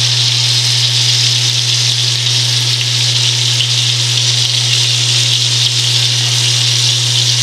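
Breaded rock cod pieces sizzling in shallow oil in a cast-iron skillet: a steady, even hiss, with a constant low hum underneath.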